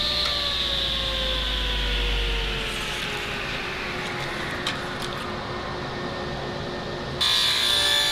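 Table saw coasting down after being switched off, its motor and blade whine falling steadily in pitch. About seven seconds in, a louder steady whine starts suddenly as the saw runs again.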